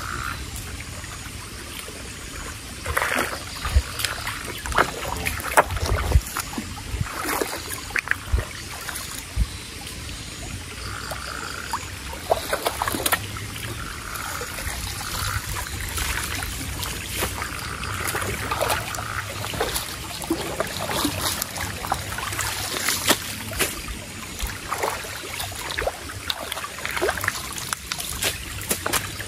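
Shallow stream water sloshing and trickling, with irregular splashes and knocks as stones and mud are shifted by hand to dam the stream.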